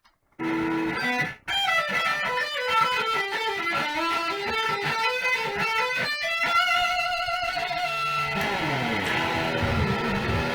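Electric guitar music: quick runs of notes, starting about half a second in after a moment of silence.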